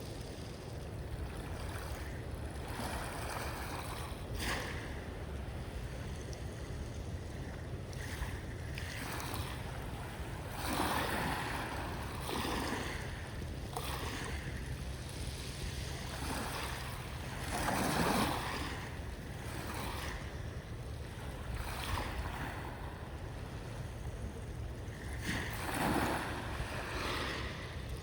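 Sea waves washing in and receding over a steady low rumble, with louder washes about every seven seconds.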